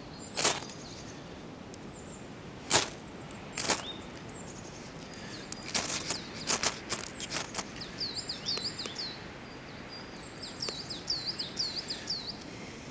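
Ferro rod scraped hard with a steel striker to throw sparks onto King Alfred's cake fungus that will not take a spark: single rasping strikes about half a second in and again near three and four seconds, then a rapid run of about six strikes around six to seven seconds in. A small bird calls over and over in the second half with short high chirps.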